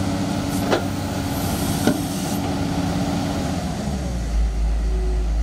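Komatsu crawler excavator's diesel engine running steadily. Two sharp knocks come about a second apart, and a deep low rumble comes in about four seconds in.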